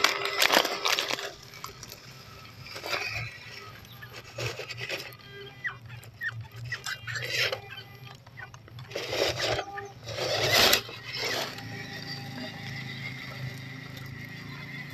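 MN99S scale RC crawler driving over dry leaves and dirt: irregular crackling bursts as the tyres crush leaves, the longest about nine seconds in. Under them runs the steady hum and whine of its small 260 brushed motor and gears.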